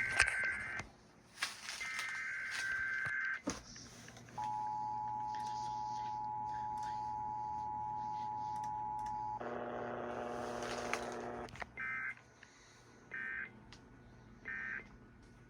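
Emergency Alert System signalling: long warbling digital header bursts, then the steady two-tone attention signal held about five seconds. After about two seconds of a harsher, buzzy sound come three short end-of-message data bursts, evenly spaced.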